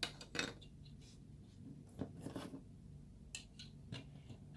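Scattered small clicks and light scrapes of plastic model-kit parts being handled and worked free of their runner, a few sharp ticks a second or so apart.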